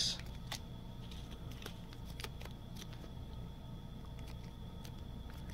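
Faint scattered clicks and crinkles of a trading card being worked into a plastic card sleeve.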